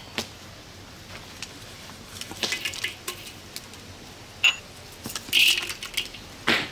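Whole spices and dried red chillies dropped into hot oil in a steel wok over a wood fire, sizzling and crackling in short spurts, with a few sharp clicks as pieces hit the pan.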